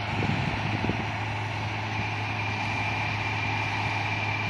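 Combine harvester running steadily while harvesting wheat: a constant low drone, with a thin steady high whine joining about two seconds in.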